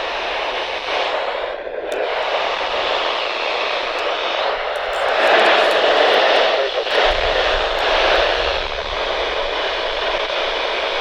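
Loud, steady radio static hiss from a weather radio receiver with no voice coming through, the sign of the broadcast signal dropping out in the middle of a warning. It swells a little louder about five seconds in.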